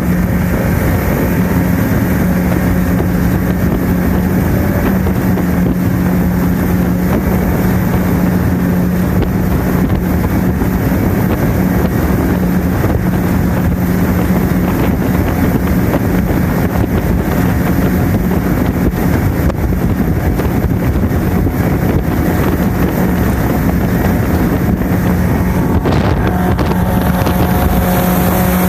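Mercury outboard fitted with a jet drive running at full throttle as the boat speeds up to about 34 mph, a loud, steady engine drone under wind noise on the microphone and rushing water.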